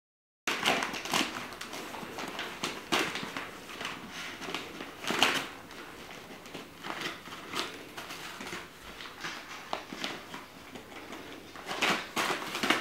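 Wrapping paper crinkling and tearing in irregular bursts as a Soft-Coated Wheaten Terrier chews and tugs at a wrapped present. It starts about half a second in.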